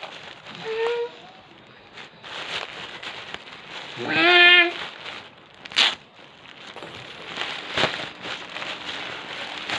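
A package being opened by hand: short, irregular bursts of tearing and rustling from tape, cardboard or plastic wrapping. There is a brief voiced sound about four seconds in.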